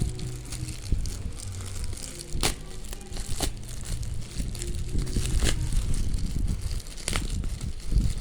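Tempered glass screen protector packaging being handled and opened: crinkling and rustling, with four sharp clicks spread through it.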